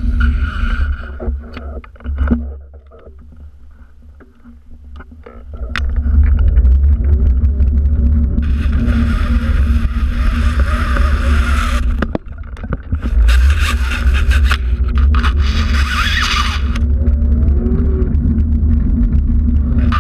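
Wind buffeting a GoPro's microphone as it is carried along, a loud low rumble that drops away for a few seconds near the start and then comes back. Two stretches of scraping hiss, each a few seconds long, run over it in the middle.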